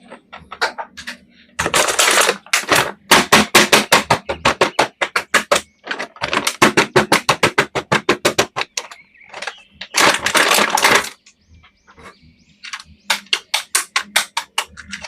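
Rapid runs of sharp clicks, about eight a second, in four bursts with short pauses between them, like fast tapping or typing.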